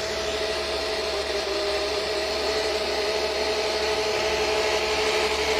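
Twin brushless electric motors driving a DIY electric surfboard's jet drives, held at a steady speed: a steady whine at two pitches over a constant rushing hiss from the water-jet pumps.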